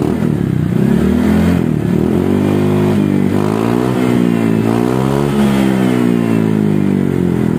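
Honda ADV 150 scooter's single-cylinder engine revved through an aftermarket SKR racing muffler in PCX 160 style. The pitch rises and falls several times as the throttle is opened and released.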